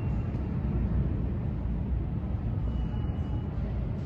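New York City subway train running in the station, a steady low rumble with no distinct knocks or breaks.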